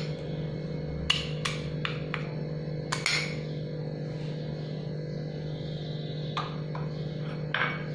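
A steel spoon clinks against a mixing bowl a handful of times while stirring dry flour. Steady background music plays underneath.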